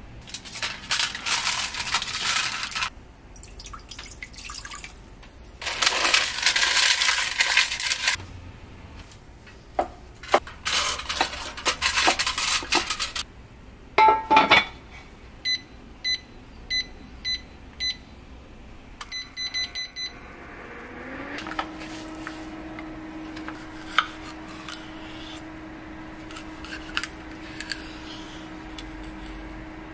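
Several bursts of rushing noise, then the cast-iron lid of a Vermicular rice pot clanks onto the pot. The pot's induction heater base gives a run of evenly spaced button beeps, then a few quick ones, and a steady hum rises in pitch and holds as the heater starts. A few knife taps on a wooden cutting board come near the end.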